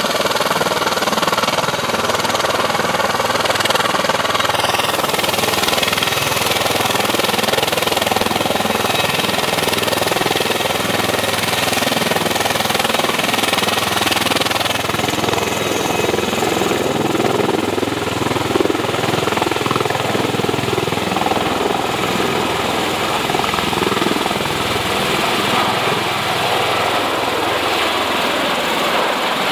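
Bell Boeing V-22 Osprey tiltrotor, with its two turboshaft engines and rotors in helicopter mode, running loud and steady. In the second half the sound grows heavier as the aircraft lifts off vertically into a hover.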